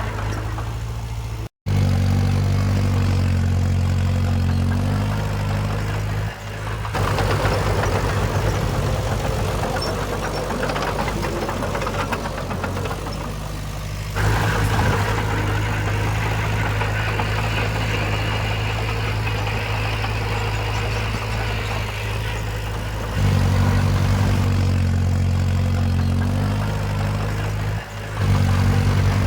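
Diesel engines of heavy earthmoving machinery running, a deep steady engine note. The sound cuts out briefly about a second and a half in and shifts abruptly several times.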